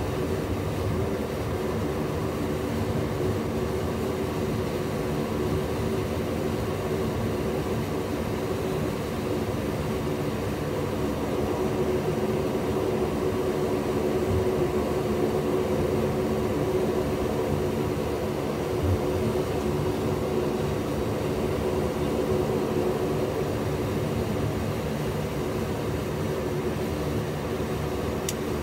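Fokker 50 twin turboprop engines and propellers droning steadily, heard from inside the cockpit, with an even low hum that holds at one pitch.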